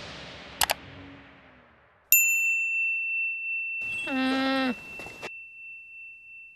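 Title-card sound effects: two quick keyboard-like clicks, then a single bright ding about two seconds in that rings on and slowly fades. Over the ding's ring comes a short bleat-like call, held and then dropping in pitch at its end.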